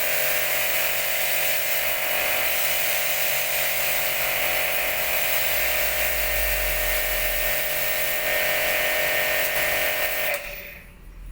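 Orion Super Jet 100-S electric high-pressure washer running with a steady hum under the loud hiss of its water jet, cutting off suddenly about ten seconds in.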